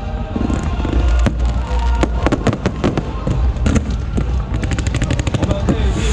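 Aerial fireworks shells bursting in quick succession: many sharp bangs a second over a continuous low rumble.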